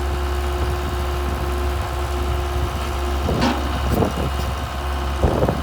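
Mitsubishi diesel engine of a Case DH4B trencher-backhoe running steadily, with a few short sharp noises about three and a half seconds in and again near the end.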